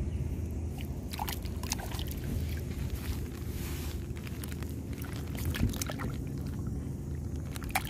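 A hand sloshing and stirring through shallow water and wet sand while feeling for clams, with scattered small splashes and clicks over a steady low rumble.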